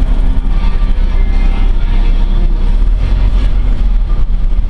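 Ford Ranger pickup heard from inside its cab as it drives off: a steady low rumble of engine and road noise.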